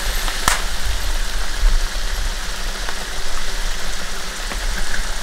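Tomato sauce with sardines sizzling in a frying pan on the hot stove, a steady hiss, with one sharp click about half a second in.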